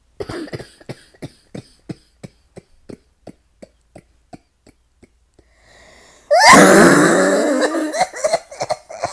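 Two women coughing: a quick run of short coughs, about three a second, each fainter than the last, then about six seconds in a much louder, drawn-out cough with throat clearing, followed by more short coughs.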